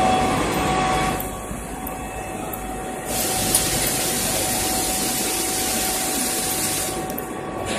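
Robotic TIG welding station working a circumferential seam on a stainless steel tank: steady machine noise with a constant whine. A louder hiss comes in about three seconds in and stops near the end.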